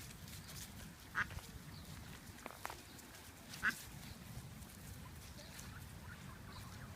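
Ducks quacking: two short, loud quacks, about a second in and again near four seconds in, with a few fainter calls between.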